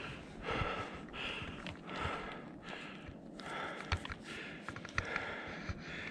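A hiker breathing hard from exertion while climbing, about one breath every three quarters of a second, with short clicks and scrapes of boots on rock.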